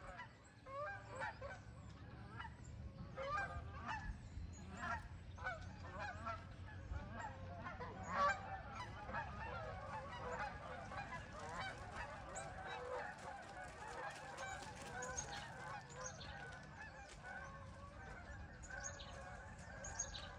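A flock of geese honking as they fly over. The calls come one after another at first, then overlap into a continuous clamour from about eight seconds in.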